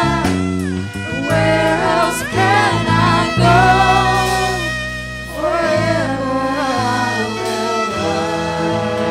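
Christian worship song: a solo voice sings held, sliding notes over a band's steady accompaniment.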